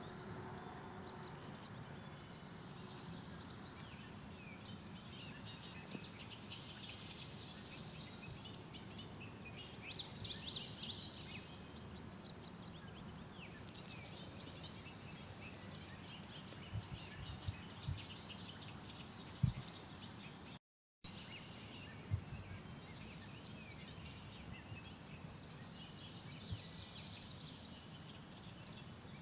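Songbirds singing in open country. A short, very high, rapid trill about a second long comes three times, a warbling phrase comes about ten seconds in, and faint chirps run between them. A soft thump comes a little past halfway.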